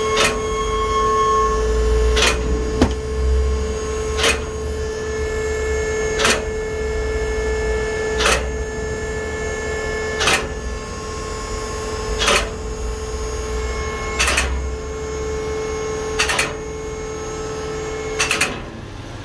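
Steady mechanical hum with a sharp click repeating about every two seconds; the hum cuts off shortly before the end.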